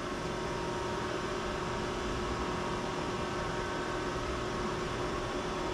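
Steady machine hum and fan hiss from a running Rebel Max CNC mill and its rotary three-phase converter while the mill homes its X and Y axes; the level does not change.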